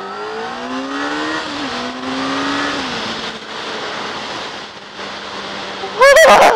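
Honda CBR600 F4i's inline-four engine accelerating. The revs climb, drop at a gear change about a second and a half in, climb again and then ease off to steady running, with wind noise over the helmet microphone. A brief loud sound cuts in near the end.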